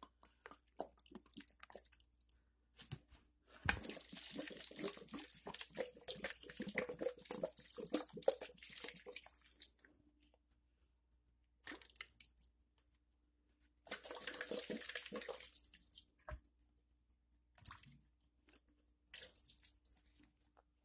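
Water pouring from a plastic jug into the soil of a potted houseplant: one long pour of about six seconds, then a few shorter pours.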